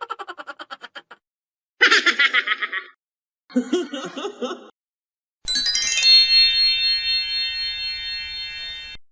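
A string of short stock sound effects with gaps between them: a fast pulsing sound, two brief warbling pitched sounds, then a long shimmering chime of many ringing tones that fades out over about three seconds.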